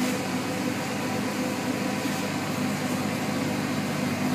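Steady machine hum with fan noise from a running powder-bed-fusion metal 3D printer and its ventilation: a low drone with a few faint steady tones over it, unchanging throughout.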